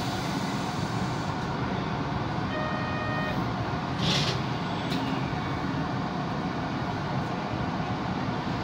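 Steady hum of a Tokyo Metro 1000-series subway train heard from just behind the cab. A short electronic beep sounds about three seconds in, and a brief hiss of air follows about a second later.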